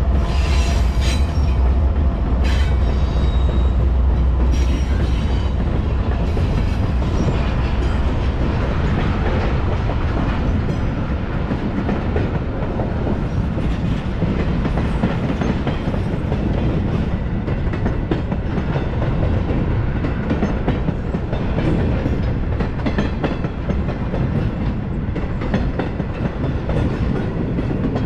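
Norfolk Southern diesel locomotives passing close beneath, their engines' low drone strong for the first few seconds and then giving way to a long intermodal freight train rolling by. Steady wheel-on-rail rumble with clickety-clack of wheels over rail joints.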